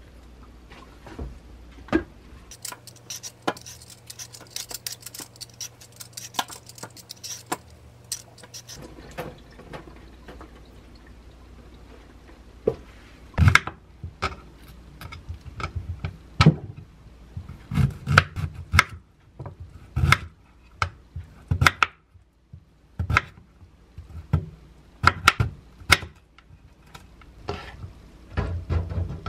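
A sweet potato being prepared: scratchy scraping for several seconds at first, then a series of sharp knife strikes on a wooden cutting board as it is cut into thick rounds, and knocks near the end as the slices are set into a metal wire air-fryer basket.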